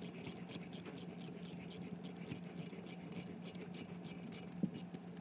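Ratchet clicking rapidly and evenly, about five clicks a second, as a socket runs down the small bolt holding the turbo's VGT solenoid bracket; a faint steady hum lies underneath.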